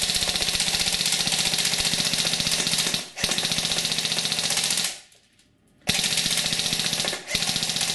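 King Arms P90 airsoft electric gun, running on a 9.6 V battery, firing long full-auto bursts: a rapid, even rattle of shots over the whine of its gearbox motor. There is a brief break about three seconds in and a pause of nearly a second about five seconds in.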